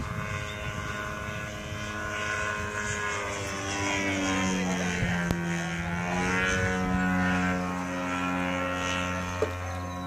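EMHW Challenger III radio-controlled model airplane's engine and propeller running steadily in flight overhead, the pitch shifting as the plane passes over about halfway through.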